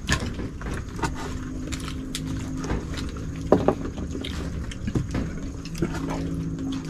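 Knife tapping and scraping as seafood is cut up by hand, a scattering of sharp knocks, over a steady low drone.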